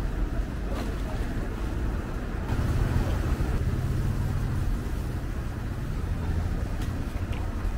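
Steady low-pitched rumbling background noise of a busy market, swelling for a few seconds in the middle, with a few faint clicks.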